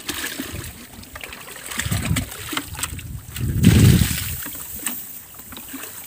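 Muddy water sloshing and splashing in a shallow drain as it is scooped up with a plastic bucket, with two heavier sloshes, one about two seconds in and a louder one near four seconds.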